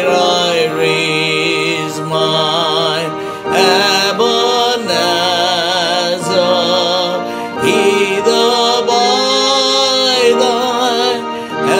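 Voices singing a hymn over a sustained organ accompaniment, the sung lines wavering with vibrato in phrases a few seconds long over held chords.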